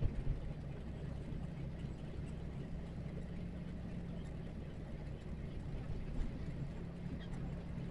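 Diesel engine of a heavy trailer truck running steadily on the road: a low, even drone with road noise.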